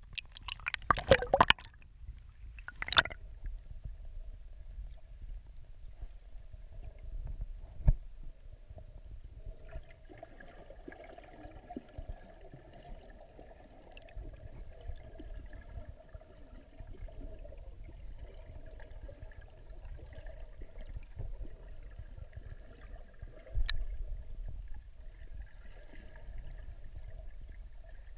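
Water splashing over an action camera in its waterproof housing as it goes under the surface, then a muffled underwater rumble heard through the housing. A faint steady hum comes in about ten seconds in, and there are a couple of sharp knocks.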